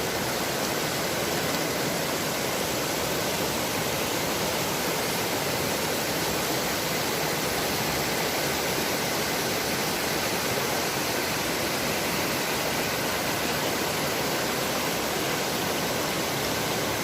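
Steady, unbroken rush of flowing water from a river or stream.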